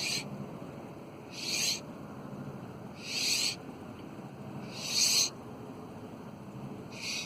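A person breathing out hard in a steady rhythm during push-ups: five short, hissy breaths about one every 1.7 seconds.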